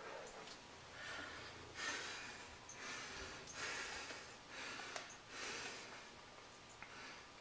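A person breathing noisily, with several breaths in and out about a second apart.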